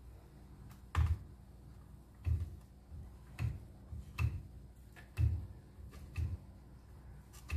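Spatula scraping batter off stopped hand-mixer beaters in a glass bowl, knocking against them about once a second, each knock a dull thud with a light click, about seven in all.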